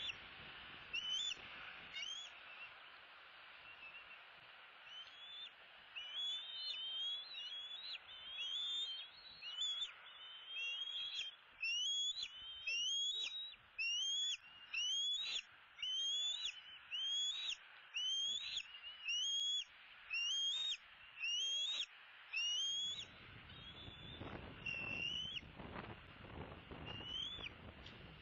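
Bald eagles calling: a long series of high, thin whistled notes, each rising then dropping off, first scattered and chattering, then steady at a little more than one a second before tapering off. Near the end there is rustling as a big eaglet flaps its wings on the stick nest.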